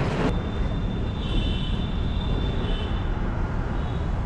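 Steady rumble of a motor vehicle on the road, with traffic noise around it. A short sharp knock sounds right at the start, and a thin high tone is heard from about a second in for roughly two seconds.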